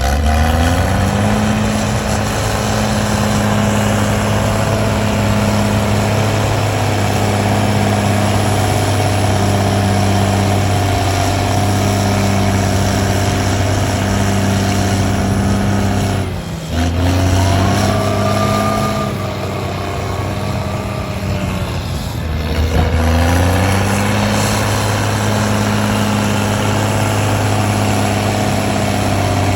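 Heavy diesel engine of earthmoving machinery working at steady revs. It breaks off briefly about sixteen seconds in, then dips and rises in revs again a little after twenty-two seconds.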